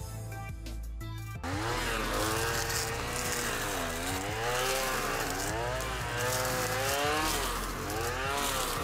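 Petrol brushcutter with 3 mm helical nylon line cutting dense brambles and climbing plants, its engine pitch repeatedly dropping and rising again as vines wrap the cutting head and slow it, then free it. It comes in about a second and a half in, after a short stretch of background music.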